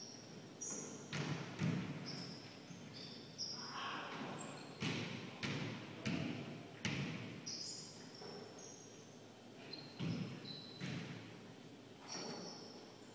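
Basketball bouncing on a hardwood gym floor, a series of sharp thuds echoing in a large hall, with sneakers squeaking on the floor between them.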